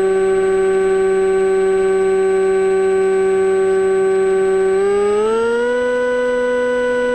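Electric motor and pusher propeller of an AXN Floater-Jet RC plane running in flight with a steady whine. About five seconds in, the pitch rises smoothly as the throttle is opened, then holds higher.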